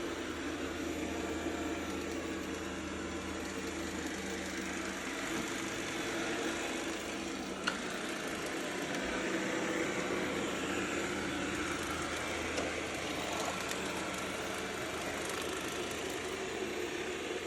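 Roborock robot vacuum running with a steady whir, and one sharp click about halfway through.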